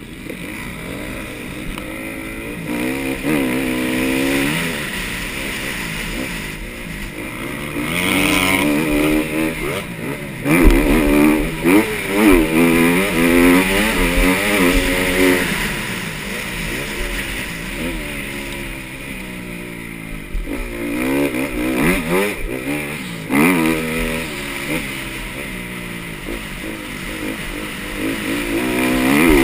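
Motocross bike engine revving hard and dropping off again and again as the rider accelerates, shifts and backs off around the track, heard from a helmet-mounted camera with steady wind rush. A few heavy thumps stand out about ten to thirteen seconds in.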